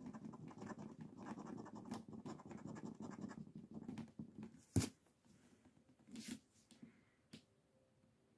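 A coin scratching the coating off a Slingo Trio Sizzler scratch-off lottery ticket in rapid back-and-forth strokes, stopping about four seconds in. Just before halfway there is one sharp tap, then a few softer handling knocks.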